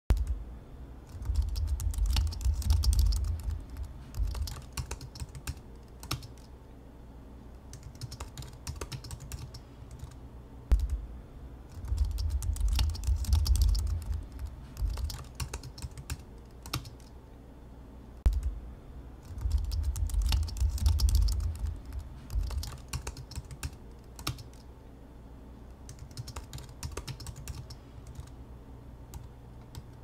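Typing on a laptop keyboard: rapid runs of key clicks in three heavy stretches, with a dull low thud under the fastest runs, alternating with slower, sparser keystrokes.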